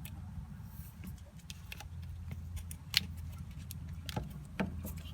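Light clicks and small rattles of hand work on turn-signal wiring and parts, with a sharper click about 3 s in and another near the end, over a low steady rumble.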